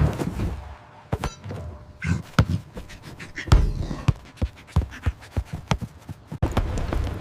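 A run of irregular knocks and thuds, some sharp taps and a few heavier thumps, the loudest about three and a half seconds in. Near the end a steady low rumble starts suddenly.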